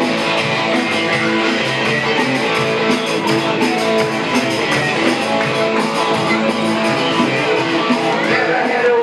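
Live rock band playing an instrumental passage: guitar strumming over a steady beat.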